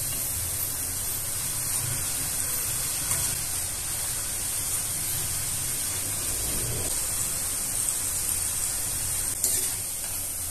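Thick chickpea-flour sev deep-frying in hot oil over a medium gas flame, a steady sizzling hiss. There are a couple of light clicks, about three seconds in and near the end, as a metal slotted spoon turns the coil in the kadai.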